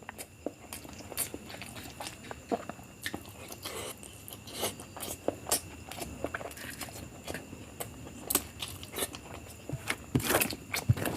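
A person eating biryani close to the microphone: chewing with irregular wet mouth clicks and smacks, a busier, louder run of them about ten seconds in.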